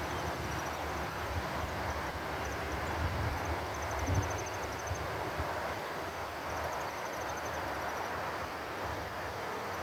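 Wind buffeting the microphone, with insects chirping in short, high-pitched trills that come and go.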